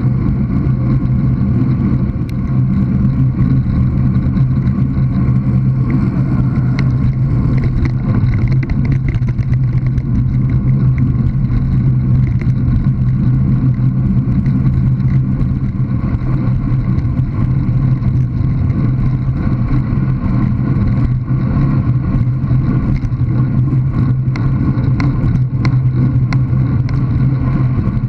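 Steady low rumble of wind and tyre noise picked up by a bicycle-mounted GoPro Hero 3+ inside its waterproof housing while riding on tarmac.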